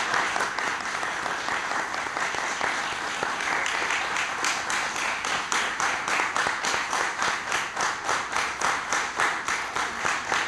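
Audience applause. About four seconds in it settles into steady rhythmic clapping in unison, about three claps a second.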